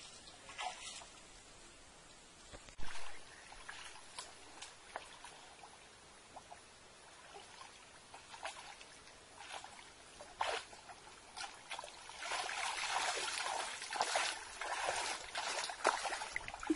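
Shallow creek water splashing and trickling as a child moves through it, with scattered small splashes and a longer stretch of sloshing about three-quarters of the way through. A single sharp thump about three seconds in is the loudest sound.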